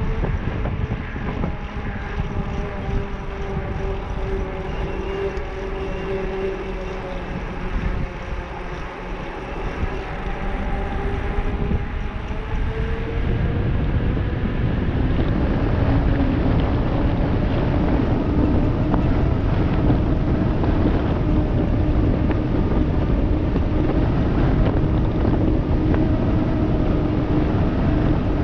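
Wind rushing over the microphone and knobby mountain-bike tyres humming on asphalt on a fast downhill. It grows louder about halfway through as the bike speeds up.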